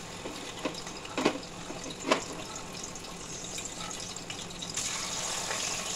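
A katla fish steak sizzling in hot mustard oil in a steel kadai, with three sharp clicks in the first two seconds or so. The sizzling grows louder about five seconds in as another steak goes into the oil.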